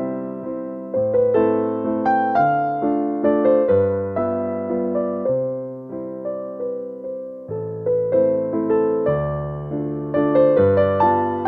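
Background piano music: a slow melody of struck notes that ring and fade over held bass notes.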